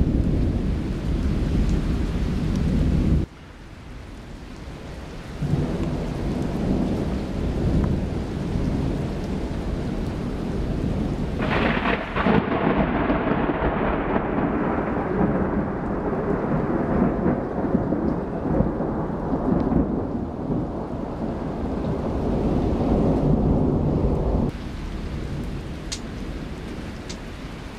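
Thunder rumbling in a thunderstorm over steady rain. About halfway through, a sharp crack of thunder breaks out and rolls on into a long rumble that slowly dulls and fades. The sound drops off suddenly a few seconds in and again near the end.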